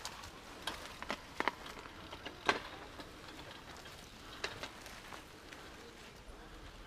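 Scattered faint ticks and crackles of dry twigs and leaves, a few irregular snaps with the sharpest about two and a half seconds in, over a quiet outdoor hush.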